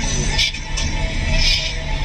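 Bass-heavy rap music played loud on a car audio system. Three Sundown Audio ZV5 15-inch subwoofers in a sixth-order box carry the deep bass, with short percussion hits on top.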